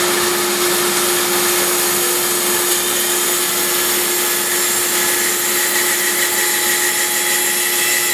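Bandsaw running and resawing a thick board into a thin veneer slice: a loud, steady machine noise with a steady hum.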